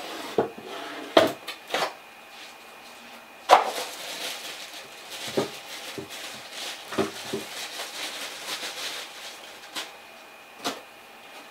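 Cardboard box being rummaged through and a plastic bag crinkling as a cordless tool battery is unwrapped, with scattered knocks and clicks.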